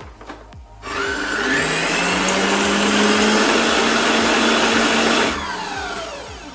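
Stand mixer whisking egg whites with sugar: the motor spins up with a rising whine about a second in, runs steadily at speed, then winds down with a falling whine near the end as it is switched off.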